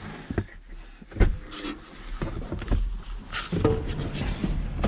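Clicks and knocks from the cab door of a Ford Transit van being unlatched and pushed open, with one sharp thump about a second in. A steadier low rumble comes in near the end as the door stands open.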